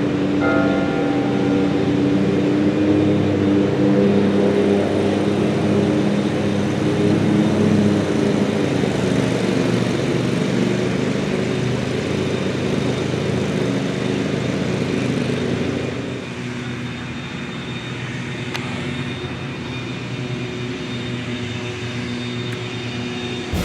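A steady engine drone with several even low tones over a broad rush, dropping in level about sixteen seconds in.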